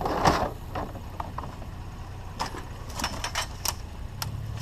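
Handling noise from pulling apart curbside scrap: a brief scrape at the start, then scattered light clicks and a quick run of small metallic clinks about two and a half seconds in, over a steady low rumble.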